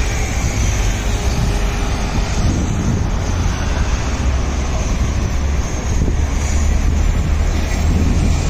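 Steady city street noise of passing traffic, with wind rumbling on the microphone.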